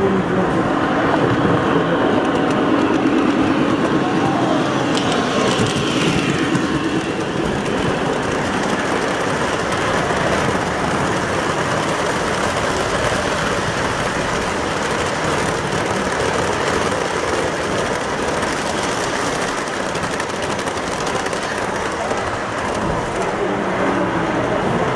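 Model freight train rolling past on the layout track close by, a steady rumble and clatter of its wheels on the rails.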